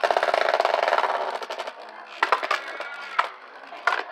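Two plastic Beyblade spinning tops, one of them 3D-printed, battling in a plastic stadium. A dense, fast rattle of the tops grinding and clashing fills about the first second and a half, then a few separate sharp clacks of hits follow.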